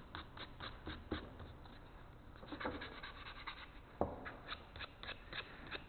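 Hand-sanding a piece of 2x4 lumber with a small torn-off piece of sandpaper: a run of short, quick rubbing strokes.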